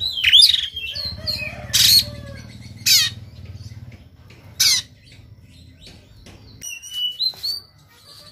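Oriental magpie-robin singing in a fighting mood: loud, harsh rasping 'shot' notes, four of them in the first five seconds, between quicker whistled and chattering phrases, with softer whistles near the end.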